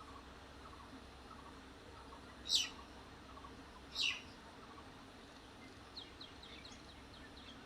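Birds calling: two loud, short calls that fall steeply in pitch, about a second and a half apart, over faint repeated chirping, with a quick run of high chirps near the end. A faint steady low hum lies underneath.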